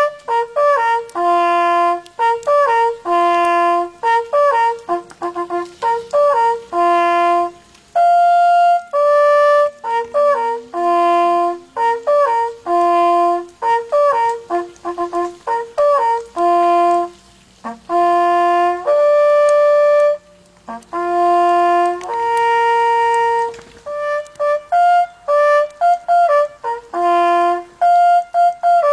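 Hunting horn blowing a traditional hunting call: rhythmic phrases of held brass notes using only the horn's natural open tones, some notes sliding up into pitch, with a long held note near the end.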